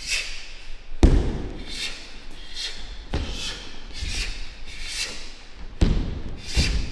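Martial arts movement: several heavy thumps of stamps or strikes, the loudest about a second in and two more close together near the end, with swishing in between.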